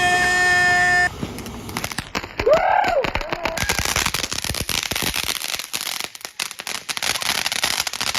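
Consumer fireworks going off: a steady tone cuts off about a second in, then a dense run of rapid crackling pops lasts about five seconds.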